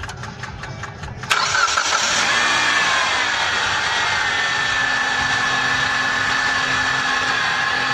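Mitsubishi Outlander engine being cranked by the starter, catching about a second in and settling into a steady idle with a high, steady whine. This is the first start after fitting a new accessory drive belt and tensioner rollers, run to check that the belt tracks.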